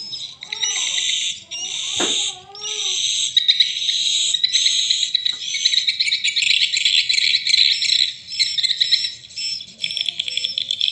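Recorded edible-nest swiftlet lure calls played through the piezo tweeters of a swiftlet-house amplifier: dense, rapid, buzzy twittering chirps, high-pitched and continuous. A sharp click about two seconds in.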